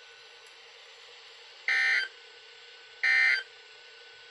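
Emergency Alert System end-of-message data bursts from NOAA Weather Radio, closing the Required Weekly Test. Two short, shrill, identical buzzing bursts come about 1.3 s apart over faint steady radio hiss.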